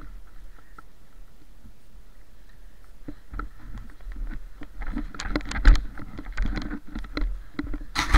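Footsteps crunching through snow, with clothing and gear rustling, starting about three seconds in and growing louder as the pace picks up; a louder scrape near the end.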